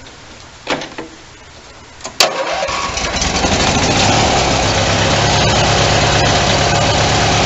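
A few light clicks, then about two seconds in the Bolens ST160 garden tractor's 18 hp Briggs & Stratton engine is started on the starter, catches almost at once, and settles into steady running.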